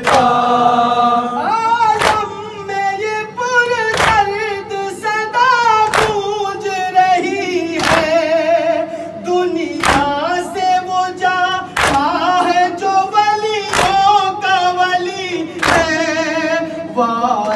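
A male reciter sings a noha (Shia lament) with a wavering, drawn-out melody. Mourners strike their chests in unison (matam), a sharp slap about every two seconds that keeps the beat.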